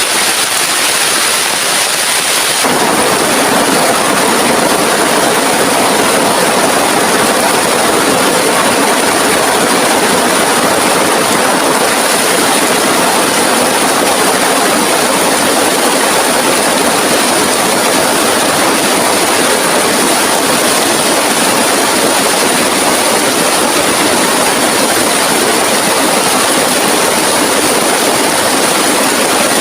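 Heavy rain pouring down in a steady, loud hiss, growing fuller and heavier about two and a half seconds in.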